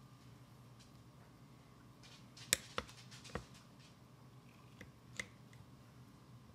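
Paring knife dicing soft peeled tomatoes on a plate, the blade tip clicking sharply against the plate about five times, the first click the loudest.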